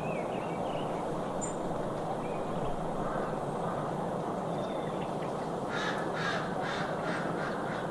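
A bird giving a quick run of about five harsh calls about six seconds in, over a steady outdoor background hiss.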